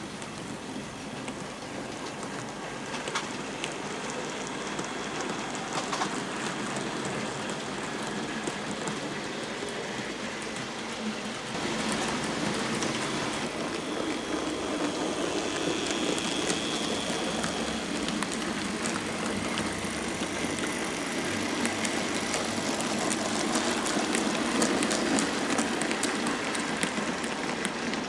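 OO gauge model trains running on the track: a steady, clicking rattle of wheels on rails with motor noise. It gets louder about a third of the way in as a train of coaches and vans runs close by, and a brief high whine comes through in the middle.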